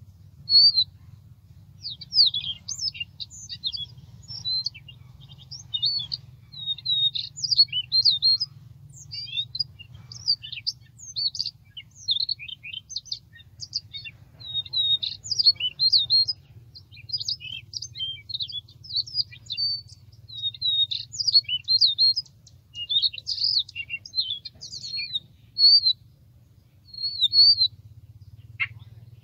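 Siberian rubythroat song: a fast, varied, scratchy warbling of high twittering phrases, almost without a pause, over a low steady hum.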